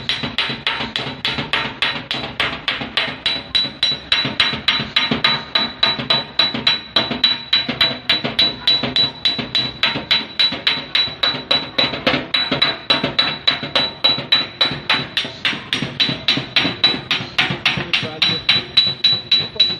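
Steady, rapid hammering on a car's sheet-metal fender, about four blows a second with a ringing metallic note: a body hammer working out the crash dent in a Kia Sportage's front fender.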